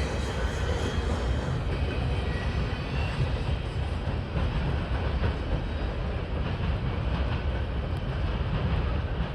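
Steady low rumble of a CSX freight train's cars rolling past.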